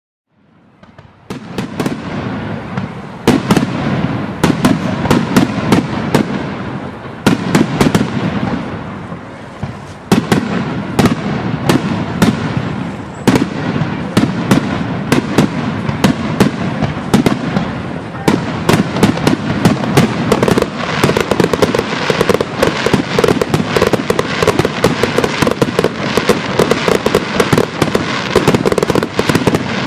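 Aerial fireworks display: shells bursting with sharp bangs and deep booms over continuous crackling. It fades in about a second in and grows denser toward the end.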